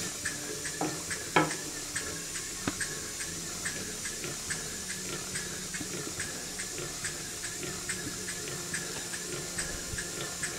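Model Engineer beam engine running slowly: a steady hiss with light, regular ticks a couple of times a second, and a louder knock about a second and a half in.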